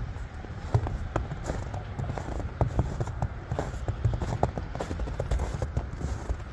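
Footsteps on a snow-covered wooden dock, a steady run of short knocks, over wind rumbling on the microphone.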